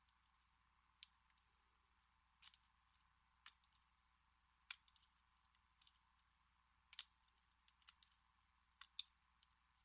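Faint, irregular small metallic clicks, about ten in all, from lock picks working the pin-tumbler core of an American Series 200 padlock.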